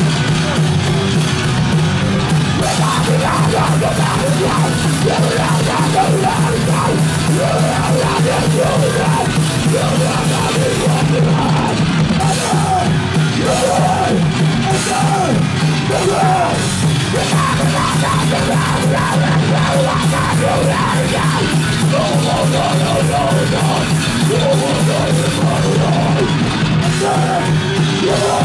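Rock band playing live: bass guitar, electric guitar and drum kit, with a yelled vocal that comes in about three seconds in.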